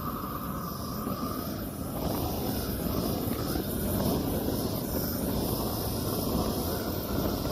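Torch flame running with a steady rushing noise. It grows a little louder about two seconds in as its output is turned up.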